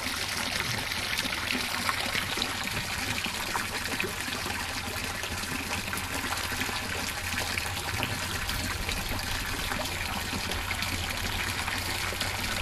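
Steady trickle of running water, an even hiss with no breaks, with a low rumble growing stronger from about eight seconds in.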